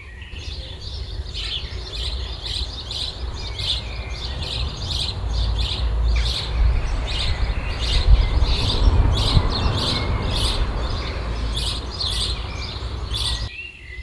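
Songbirds singing: many short, high chirps and trills following one another over a steady rushing background noise.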